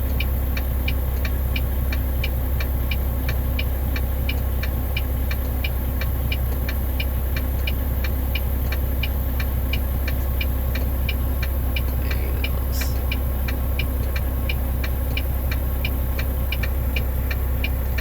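Car engine idling with a steady low rumble, over an even, rapid ticking of about two or three ticks a second.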